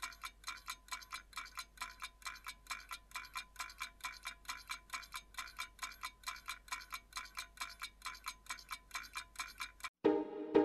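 Clockwork ticking sound effect: an even run of short, pitched ticks, about four a second, that stops about ten seconds in as music begins.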